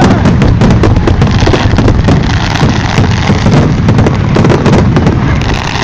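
Fireworks finale: a dense, continuous barrage of bangs and crackles with a deep rumble under it, very loud throughout.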